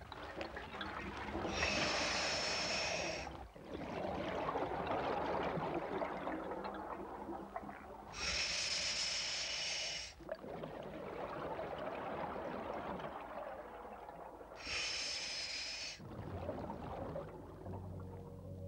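Scuba diver breathing through a demand regulator, three breaths about six seconds apart. Each one is a hissing inhalation lasting one and a half to two seconds, followed by a long bubbling exhalation.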